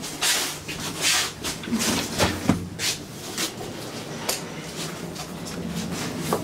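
Inside an elevator car: footsteps and knocks on the car floor for the first few seconds, over a steady low hum. The car doors slide open later on, and there is a sharp click near the end.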